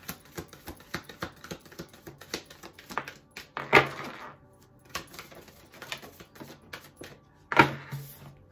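A deck of oracle cards being shuffled by hand: a rapid run of light card clicks and taps, with two louder swishes, about four seconds in and again near the end.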